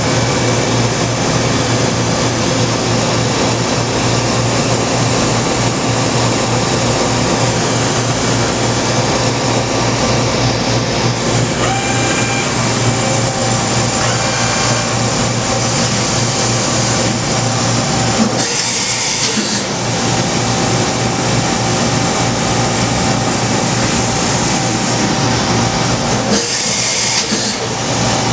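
A Mori Seiki SH-400 CNC horizontal machining center running under power: a steady machine hum with a few constant tones. Two short bursts of high hiss come about two-thirds of the way in and again near the end.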